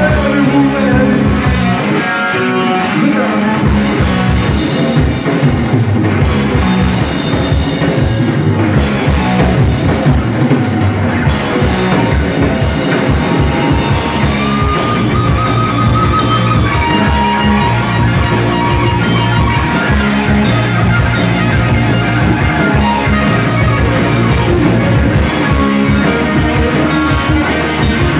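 Live rock band playing loud: two electric guitars, electric bass and a drum kit, with a steady driving beat.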